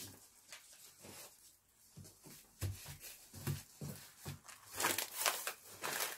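Clear plastic bags crinkling and rustling as they are handled and moved about, with a few soft knocks, and a louder run of crinkling about five seconds in.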